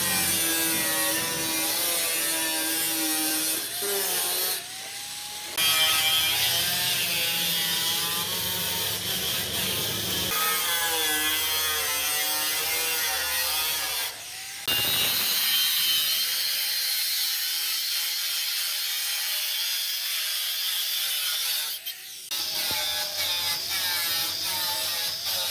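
Electric angle grinder with a thin cut-off disc slicing through galvanized sheet steel, its high whine wavering in pitch as the disc bites and eases, with a few short breaks in the cutting.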